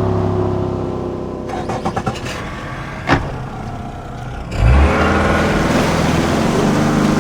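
A run of boat engine recordings. A steady engine running gives way to a quieter stretch of clicks and rattles with one sharp clank about three seconds in. Then an engine starts with a thump about four and a half seconds in and runs steadily.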